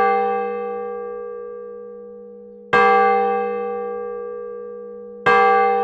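A deep bell tolling, one stroke about every two and a half seconds, each stroke ringing on and slowly fading.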